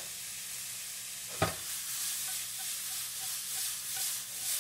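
Chopped onions, tomatoes and garlic sizzling in oil in a nonstick frying pan while being stirred. There is one sharp knock about a second and a half in. After that the pan is shaken and the vegetables toss and swish in it in a rhythm.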